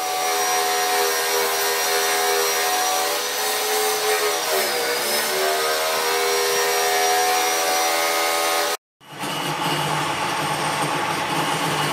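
Lathe motor running with a steady hum; its pitch sags briefly about halfway through and then recovers. After a brief break near the end, a lower, steadier machine hum follows.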